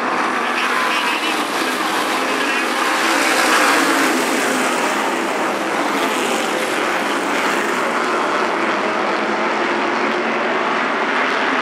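A pack of modified race cars running at speed on an asphalt oval, many engines blending into one steady loud drone that swells briefly about three to four seconds in.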